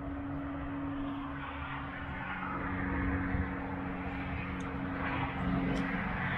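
Steady road traffic noise, a continuous rumble with a low engine hum, growing slightly louder.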